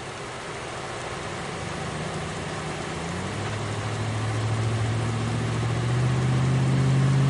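An engine drone with a low steady hum, growing louder over the last few seconds, over a steady rushing background.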